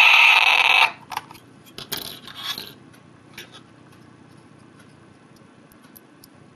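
ChipTrick DIY chiptune synthesizer sounding a loud, buzzy electronic tone while its button is held, cutting off suddenly about a second in. Then a few clicks and scrapes as a small circuit board is picked up and handled.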